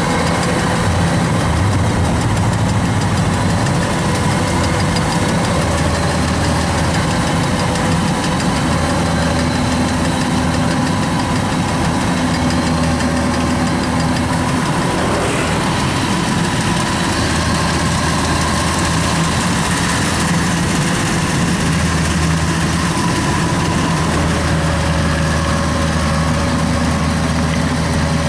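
Kubota DC93 rice combine harvester running steadily: its diesel engine and machinery making a loud, even drone.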